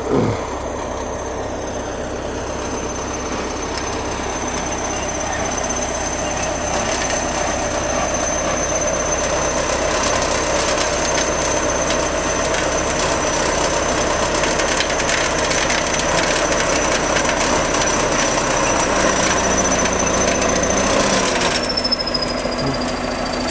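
Crawler bulldozer's diesel engine working hard as the blade shoves a heap of earth, with a rapid clatter from the running gear. A thin high whine runs over it and slides lower near the end as the engine note changes.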